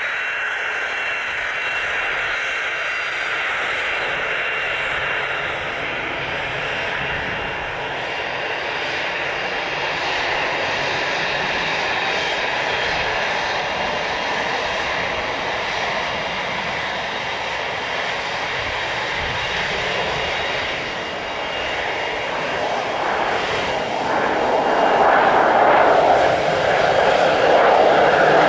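Pilatus PC-12's single turboprop engine running steadily, growing louder over the last few seconds.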